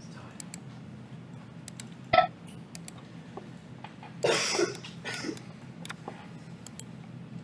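Steady low room hum with a few scattered computer mouse clicks. A short, sharp vocal blip comes about two seconds in, and a brief rushing noise about four seconds in.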